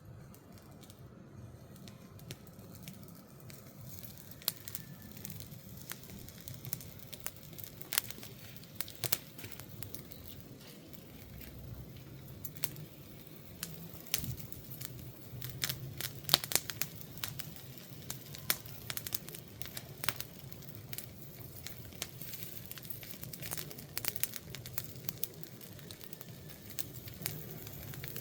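Wood fire crackling: irregular sharp snaps and pops, a few at a time, throughout.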